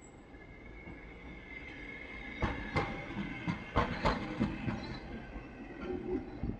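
Hankai Tramway tram car 607 passing close by: a high steady whine, then about two and a half seconds in a quick run of sharp clacks, about eight in two seconds, as its wheels go over the track joints.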